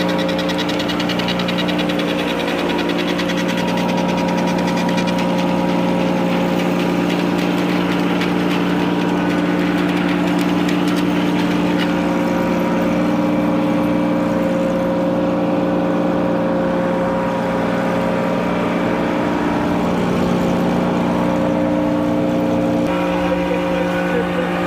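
Engine-driven Frick circular sawmill running steadily, a constant engine drone.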